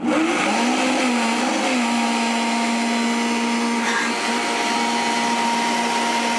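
Vitamix 5200 blender motor running, blending a thin batter of eggs, milk and flour. Its whine climbs and wavers over the first couple of seconds as the speed dial is turned up, then holds steady.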